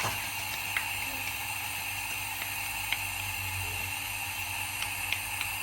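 Steady hissing background noise with a low hum and a few faint ticks.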